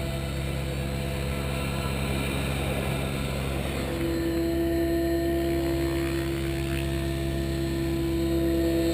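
Synergy E7SE 700-size electric RC helicopter running on the ground with its rotor spinning: a steady motor whine and rotor whir. About four seconds in, a strong steady tone comes in and holds, and the sound gets slightly louder.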